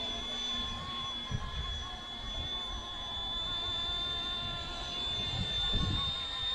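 C189 Hughes MD500 scale RC helicopter in flight: a steady high-pitched motor and rotor whine, with uneven low rumbling beneath it.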